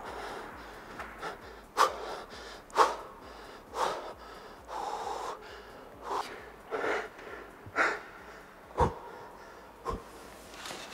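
Heavy, gasping breaths of a person running up stairs, about one a second, with two sharp footfalls near the end.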